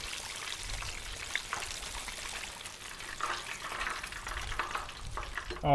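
Cornmeal-battered whole panfish frying in a skillet of hot oil: a steady sizzle.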